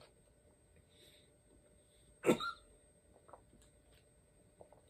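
A man gives one short cough about two seconds in, his throat irritated by a hit of concentrate vapour from an e-nail.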